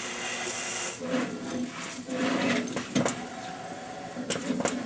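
PVA 1000 conformal coat dispenser running a program, its motion system whirring as it moves the film coat head over a circuit board. There is a hiss in the first second and a few sharp clicks later on.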